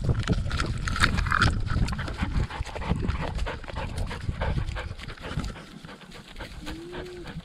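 Kelpie sheepdog panting as it runs, heard from a camera strapped to its own body, with heavy wind and movement rumble and many small knocks and bumps. A short hum rises and falls near the end.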